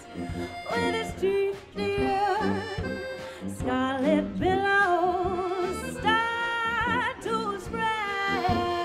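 Small acoustic band of accordion and tuba playing a swing tune, with a woman's voice singing long held notes with wide vibrato through the second half.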